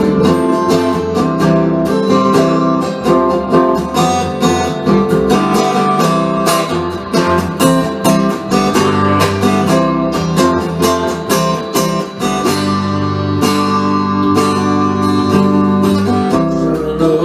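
Instrumental break of a country-style song: acoustic guitar strumming chords, with other instruments possibly underneath.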